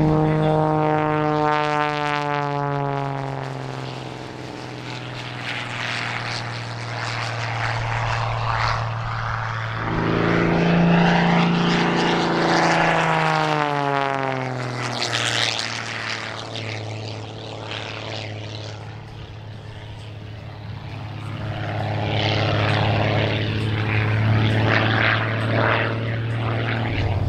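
MXS aerobatic monoplane's piston engine and propeller in flight. The pitch falls over the first few seconds, swells again about ten seconds in and falls away, then settles into a steadier drone as the level rises again near the end.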